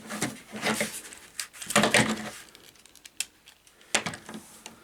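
Plastic action figure being handled and posed: scattered small clicks and rustling of plastic parts, with a sharper click near the end.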